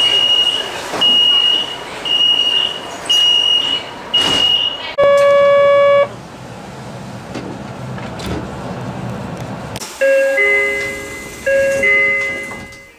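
Three train door-closing warnings in a row. First, a Guangzhou Metro door-closing alarm beeps high about once a second, five times. Then a door buzzer sounds once for about a second, the train rumbles quietly for a few seconds, and a Tokyo Metro door chime plays a two-note falling ding-dong twice.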